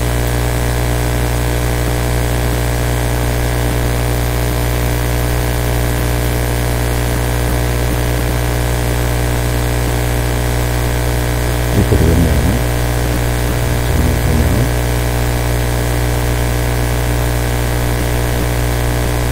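Steady electrical mains hum and buzz in the microphone line, with many overtones. Two short vocal sounds break in about twelve and fourteen seconds in.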